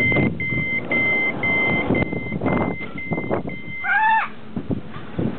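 Passenger door of a double-decker push-pull train: its open-button signal beeps about two times a second for some four seconds. The door then opens with a short squeal that rises and falls, about four seconds in.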